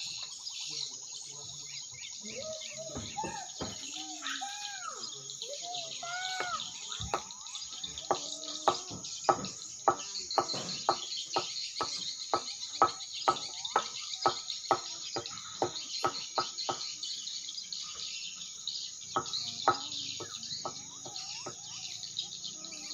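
Swiftlets twittering around a swiftlet house, a steady high chatter mixed with other bird calls. There are curving whistled notes in the first few seconds and a regular run of sharp notes, about two a second, through the middle.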